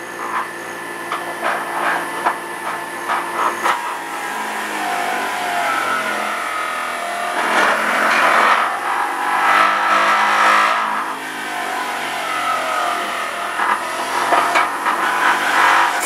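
Electric juicer motor running, its pitch repeatedly sagging and recovering as produce is pushed through it, with a few knocks in the first few seconds.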